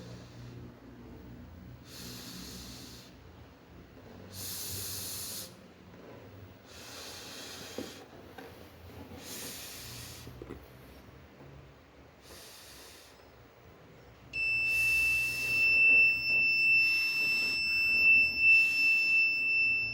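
Short hissing bursts about every two seconds. About 14 seconds in, a piezo buzzer starts a loud, steady, high-pitched tone. It is the fire alarm's warning buzzer, which sounds when the DHT11 sensor reads a temperature above 60.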